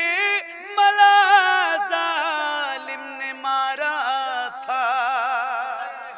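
A man's solo voice singing a naat, drawing out long melismatic notes that waver and glide in pitch between the words of the refrain.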